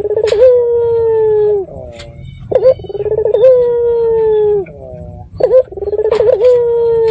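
Barbary dove (puter) cooing. Three times, a short clipped note is followed by a long drawn-out coo that falls slightly in pitch and lasts about a second and a half, at roughly three-second intervals.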